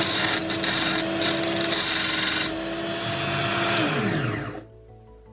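Parkside PBSG 95 D5 drill bit sharpener running with a steady motor hum while a steel HSS drill bit is ground against its stone for about two seconds, adding a harsh grinding hiss. The motor is then switched off and its pitch falls as it spins down, fading out just over four seconds in.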